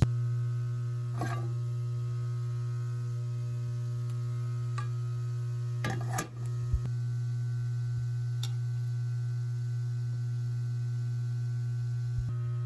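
Steady low electrical hum with several overtones above it, unchanging throughout, with a few light clicks and knocks over it, the clearest a pair about six seconds in.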